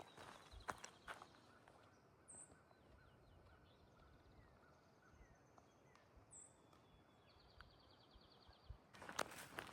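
A hiker's footsteps on a trail for about the first second, then a pause with birds calling: short high chirps and a couple of quick trills. The footsteps start again near the end.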